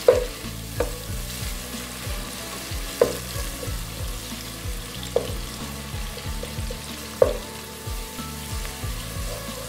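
Sliced onions, tomato and grated ginger sizzling in hot oil while a wooden spatula stirs them, knocking sharply against the non-stick pot about five times.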